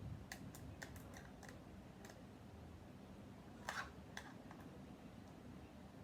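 Faint small clicks and ticks of a screwdriver working a screw out of a plastic toy walkie-talkie, with a louder short rasp a little over halfway through.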